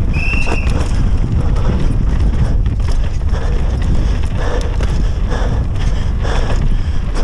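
Wind buffeting the microphone over a downhill mountain bike at speed on a dry dirt and root trail: tyres rumbling and crunching over the ground, with the bike rattling and clattering throughout. A short high squeal sounds just after the start.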